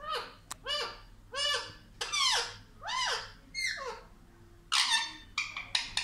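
Indian ringneck parrot calling: six squawks in a row, about one every 0.7 s, each rising then falling in pitch, followed by a harsher call and a quick run of short calls near the end.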